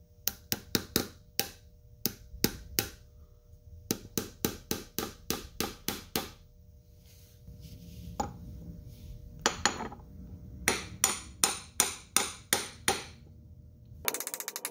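Hammer tapping a new axle shaft seal into its bore in the transaxle case: light, sharp taps about three to four a second, in short runs with pauses between them. In the later runs the hammer strikes a large socket set on the seal as a driver.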